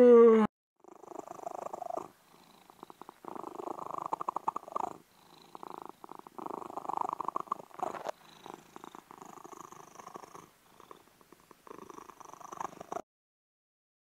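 A cat-like purr: a rough, fast-pulsing rasp in phrases of one to two seconds, breath in and breath out, with short gaps between them. It opens with the tail of a short, loud pitched vocal sound that falls slightly, and the purring stops about a second before the end.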